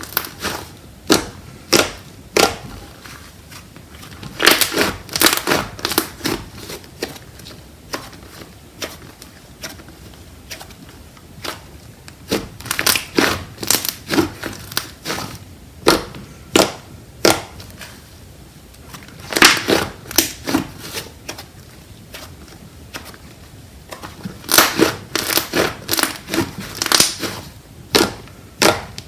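Hands squishing and poking slime, giving clusters of sharp clicks and crackly pops with quieter pauses between.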